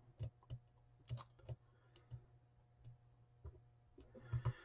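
Faint, irregular clicks and light taps, about ten in all, of small electronic parts and hand tools being handled while resistors are fitted on a circuit board.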